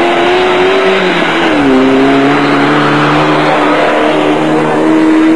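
Off-road race car engine running hard at high revs as the car passes, its pitch dropping about a second in, holding steady, then stepping up again near the end.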